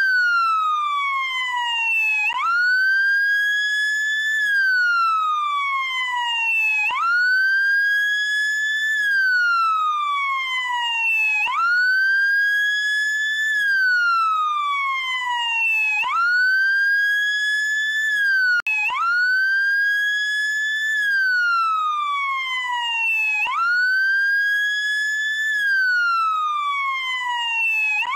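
SAMU emergency-motorcycle siren on its wail setting. The pitch sweeps up quickly, holds briefly, then falls slowly, repeating about every four and a half seconds, with a momentary cut about two-thirds of the way through.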